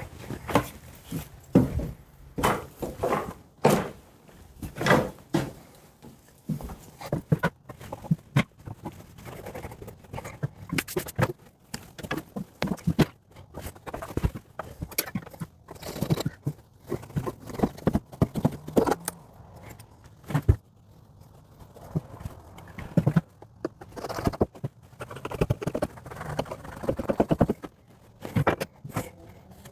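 Rockwool mineral wool batts being handled and pushed into wooden wall stud bays: irregular thumps and knocks, with stretches of rustling and scraping as the slabs are pressed in.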